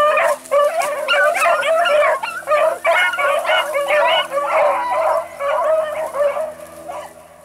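A pack of beagles in full cry, many hounds baying at once as they run a scent line in a chase. The chorus fades away near the end.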